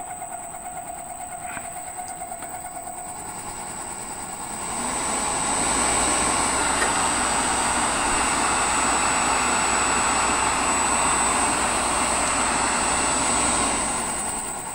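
Belt grinder's 2 hp three-phase AC motor running on a variable-frequency drive with no belt, its cooling fan rushing under a high steady whine. It grows louder about four and a half seconds in and drops back near the end. The motor is vibrating badly, which the owner suspects comes from inside the motor or from an imbalanced cooling fan.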